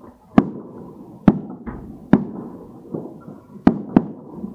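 Fireworks bursting: six sharp bangs about a second apart, the last two close together, each trailing off in echo, with the delayed boom of fireworks let off some way away.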